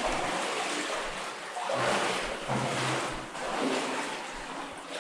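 Footsteps wading and sloshing through shallow water in a mine passage, a rushing splash with each step, about one a second.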